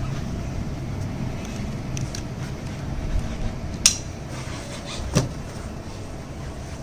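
Handling of a paramotor travel bag's belts and hard panels: two sharp clicks or knocks, about four and five seconds in, over a steady low rumble.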